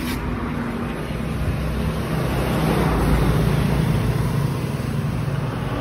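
Motor vehicle engine running past, its rumble growing louder toward the middle and then easing off.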